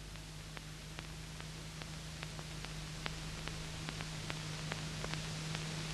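Soundtrack noise of an old film print: a steady hiss and a low hum, with faint clicks about four times a second.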